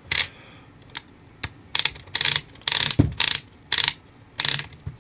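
Ratchet of a TOLRET hand rivet nut tool clicking as the mandrel is turned to back it in: about nine sharp clicks, singly or in quick pairs, at uneven intervals.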